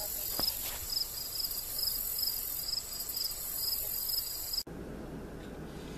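Insects calling: a steady high-pitched hiss with a regular chirp repeating about three times a second. About three-quarters of the way through it cuts off abruptly to a quieter, low, steady hum.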